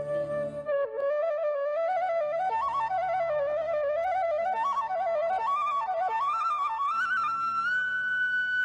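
Background music: a flute-like melody moving up and down in small steps over a soft low drone, settling on a long held high note near the end.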